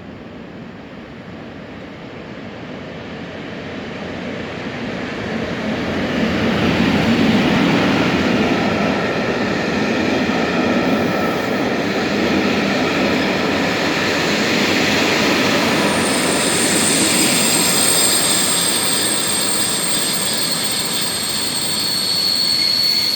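Passenger train hauled by an EU07 electric locomotive running into the station: the rolling noise of wheels on rails builds over the first six seconds as it approaches, then holds. About two-thirds of the way through, a high-pitched squeal of brakes and wheels sets in as it slows.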